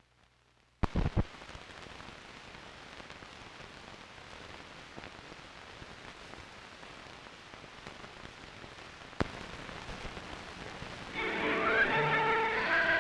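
Hiss and crackle of an old film's optical soundtrack running over the countdown leader, with a few loud pops about a second in and a single click near nine seconds. Music begins about two seconds before the end, as the title card comes up.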